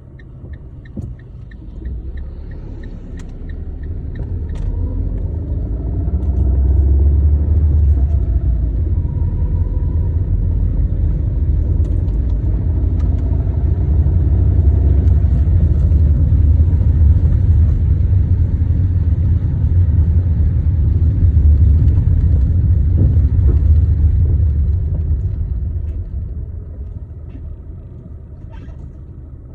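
Fiat Linea car on the move: a low rumble that swells over a few seconds, holds steady for most of the stretch, then eases off near the end. A quick run of light, regular ticks sounds at the start.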